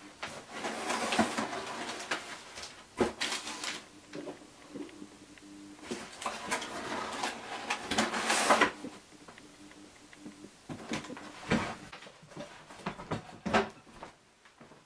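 Cardboard boot box being handled and opened: stretches of rustling and scraping, with several sharp knocks and taps.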